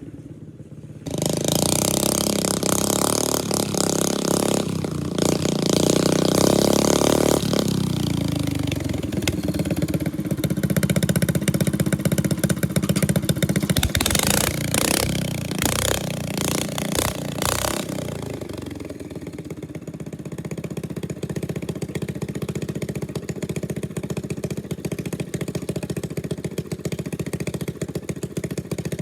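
Single-cylinder Briggs & Stratton 13.5 hp lawn tractor engine running, revved up, then dropping in speed about eight seconds in. It clatters for a few seconds midway, then settles to a lower, steady run.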